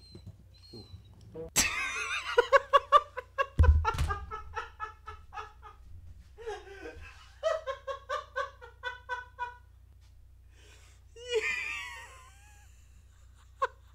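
A man laughing hard, in long runs of rapid ha-ha pulses, with a short burst of laughter again near the end. A low thump comes about four seconds in.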